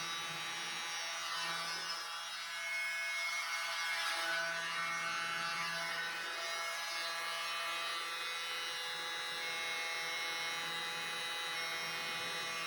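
Small handheld electric air blower running steadily: a motor hum with a high whine and rushing air.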